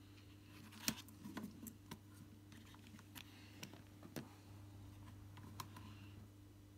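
Scattered light plastic clicks and taps as a netbook keyboard is laid back into its chassis and pressed into place, the sharpest click about a second in, over a faint steady hum.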